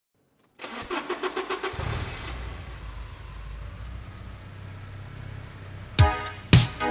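Porsche 944 engine cranking on the starter for about a second, catching and settling into a steady low idle. Music with sharp drum beats comes in near the end.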